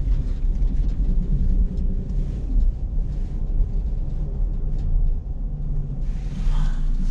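Vehicle engine idling, heard from inside the cab: a steady low rumble.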